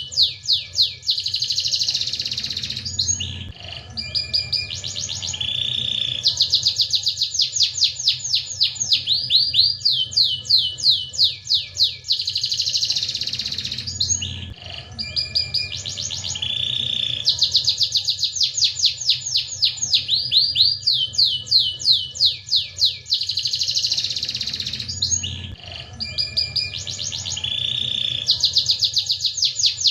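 Domestic canary singing in full song: rapid rolling trills of quick sweeping notes alternating with held, buzzy tours. The same sequence of phrases comes round again about every eleven seconds.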